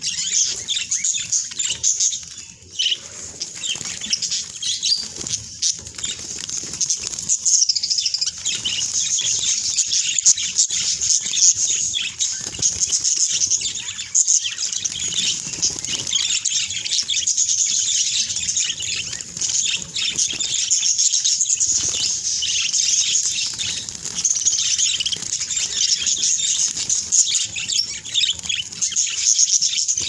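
A flock of budgerigars chattering nonstop in a dense high warble while fluttering their wings and rustling through leafy greens as they bathe in them.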